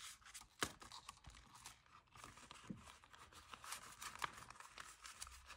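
Faint rustling of paper banknotes and crinkling of a clear plastic binder envelope as cash is handled, with scattered light clicks.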